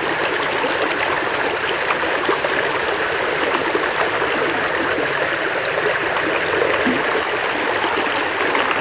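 River water running fast over and around rocks: a steady, even rush.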